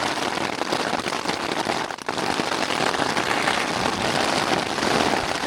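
Heavy rain falling on a tent, heard from inside: a loud, dense, crackling patter.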